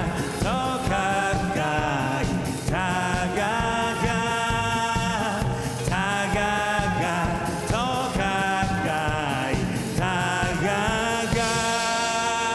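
Live rock band music: electric guitar, bass guitar and drums, with singing in long, held notes that slide in pitch.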